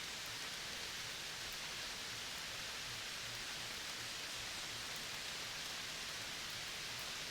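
Steady, even hiss of outdoor natural ambience, with no distinct calls or events.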